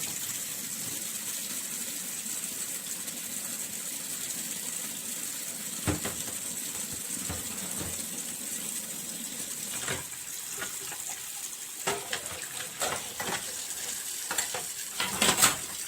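Kitchen tap running steadily into a sink as cups are washed, with scattered clinks and knocks of cups and dishes, more frequent near the end.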